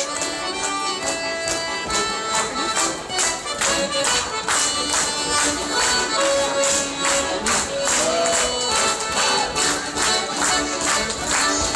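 Piano accordion playing a lively tune in sustained reedy notes and chords, over a crisp steady beat of about two to three strokes a second.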